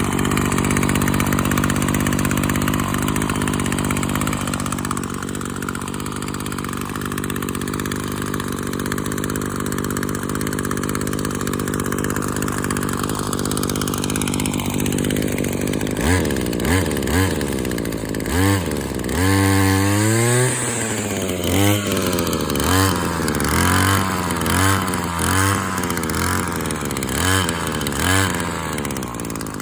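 Maruyama Big M KC26NX1's small petrol engine idling steadily. About halfway through it is revved up and down in a dozen or so quick throttle blips, one held a little longer, then eases back near the end.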